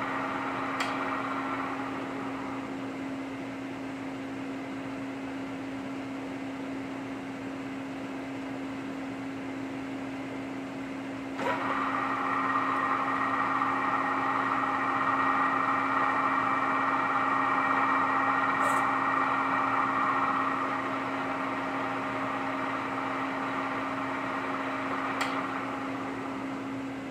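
Milling machine spindle running with a steady hum. About eleven seconds in, a 3/8 ball nose end mill bites into a broken hardened dowel pin in the end of a steel camshaft, adding a louder, higher steady cutting sound for about ten seconds before it eases off.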